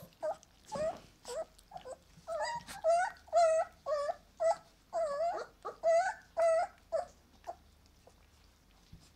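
Puppies whining and whimpering: a rapid string of short, high, wavering cries, about two to three a second, that stop a little before the end.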